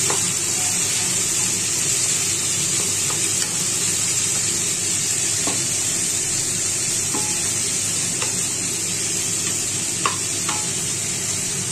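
Chopped onions, green chillies and tomatoes sizzling in oil in a non-stick kadai, with a steady hiss. A wooden spatula stirs them, giving a few scattered scrapes and taps against the pan.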